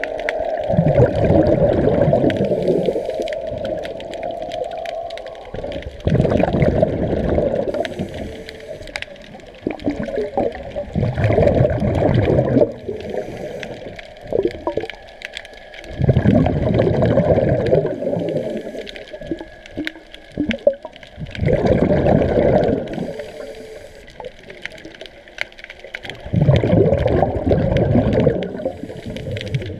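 A scuba diver's breathing heard underwater: surges of exhaled bubbles from the regulator about every five seconds, with quieter bubbling and gurgling between.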